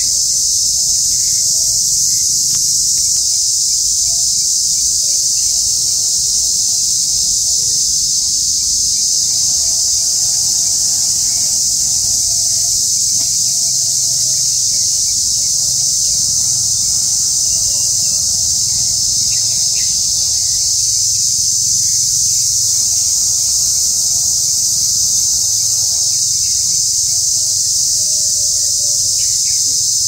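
Steady high-pitched insect chorus shrilling without a break.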